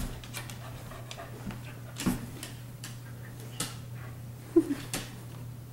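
A dog playing with a blanket on a hardwood floor: scattered light clicks and knocks, with a brief low whine about four and a half seconds in.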